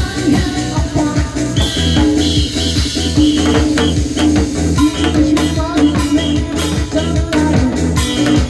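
Loud music with a steady beat, low bass pulses and a repeating melody line.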